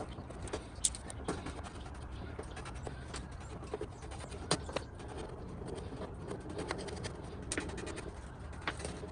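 Light clicks and scrapes of hand work, a few sharp ones scattered seconds apart, over a steady low background noise.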